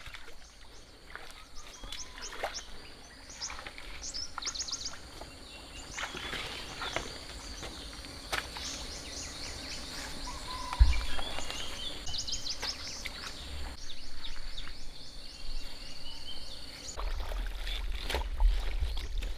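Outdoor ambience of birds chirping over a steady high-pitched drone that stops near the end, with scattered knocks and one heavy thump about eleven seconds in.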